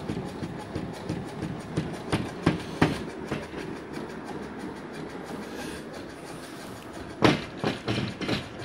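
Doors and hardboard panels rattling and knocking in their frames, shaken by a rotary subwoofer playing a 3 Hz sine wave. There is a steady clatter with repeated sharp knocks, the loudest about seven seconds in.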